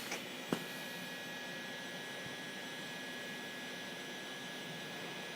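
Dynapath Series 500 CNC bed mill running a program, its spindle turning and Z axis feeding slowly: a steady quiet hum with a thin high whine, and a sharp click about half a second in.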